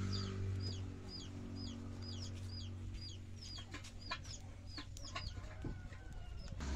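Chickens peeping: a steady run of short high chirps, about two a second, with a few sharp clicks in the second half. A low steady hum fades out about halfway through.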